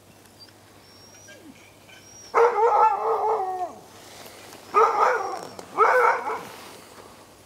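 Huskies howling: one drawn-out howl about two and a half seconds in that falls away at its end, then two shorter howls around five and six seconds.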